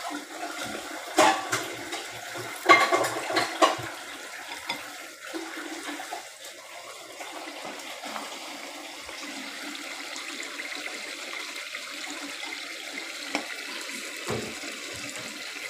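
A serving spoon clinking and knocking against the pot and ceramic plates several times in the first few seconds as curry is dished out, then a steady hiss from the stove.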